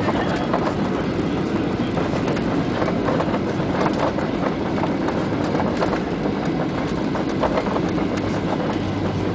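Jet airliner cabin noise during the landing rollout: a steady rush of engine and air noise over the rumble of the wheels on the runway, with a constant scatter of small rattles and knocks as the cabin shakes.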